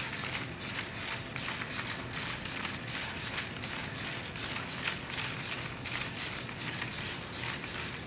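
Four-cylinder LEGO Technic pneumatic engine driven by gas from boiling liquid nitrogen, running at speed: its cylinders exhaust in a rapid, even train of hissing puffs, several a second.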